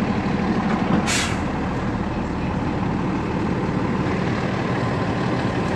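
Dump truck engine idling steadily, heard from inside the cab, with a short sharp hiss of air about a second in.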